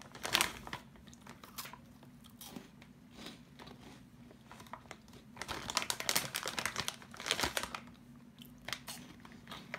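Crinkling of a foil snack bag as a hand digs into it, with crunching and chewing of a crunchy snack. The sounds come in scattered spells and are busiest a little past halfway.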